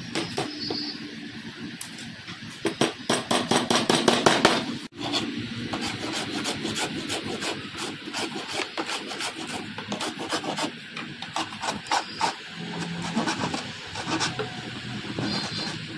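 Sandpaper rubbed by hand over a wooden frame in quick back-and-forth strokes, fastest and loudest from about three to five seconds in.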